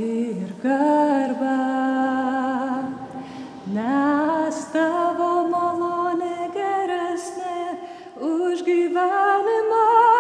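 A woman singing a slow Lithuanian worship song unaccompanied, holding long notes with vibrato and sliding up into each new phrase.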